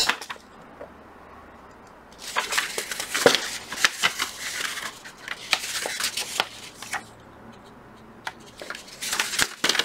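Sheets of paper plans rustling and crinkling as they are handled and folded, from about two seconds in to about seven seconds, with a few light clicks near the end.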